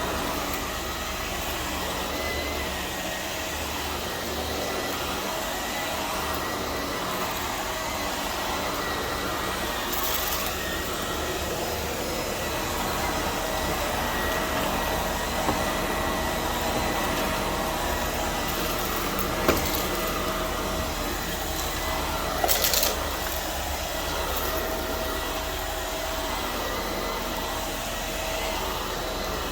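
Vacuum cleaner running steadily, with a constant motor whine and a few brief knocks past the middle as it bumps or picks up debris.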